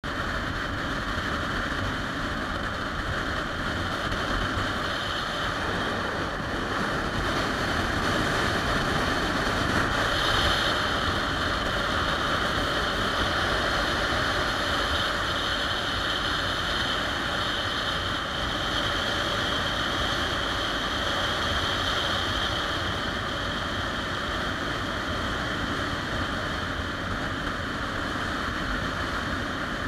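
Steady rush of wind and road noise from a motorcycle cruising at speed, picked up by a camera mounted on the handlebars, swelling a little about ten seconds in.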